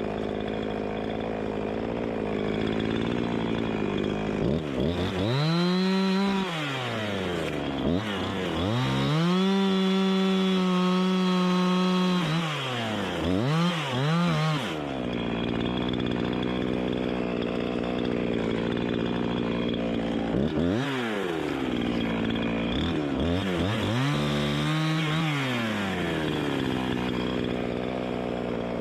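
Gas chainsaw idling and being revved to high speed several times, with one longer held run of a few seconds, typical of bucking wood; it drops back to idle between revs.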